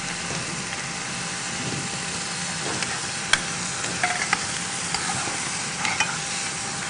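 Chopped onion, green onion and garlic sizzling in oil in a frying pan over a strong flame, with a spoon stirring and scraping through them and clicking against the pan a few times.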